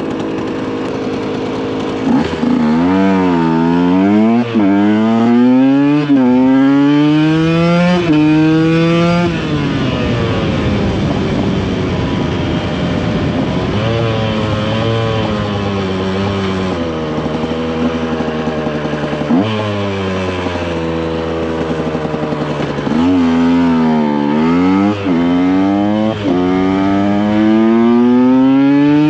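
2014 KTM EXC 125 Sixdays two-stroke single-cylinder engine idling, then from about two seconds in revving up through the gears, its pitch dropping at each upshift. After a steadier stretch it pulls up through several more gears near the end.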